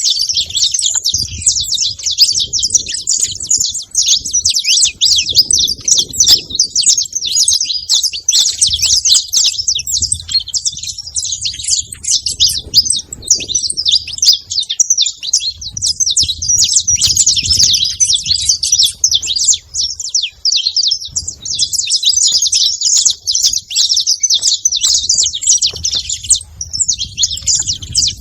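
Saffron finch chirping and singing without a break, a dense run of quick, high chirps.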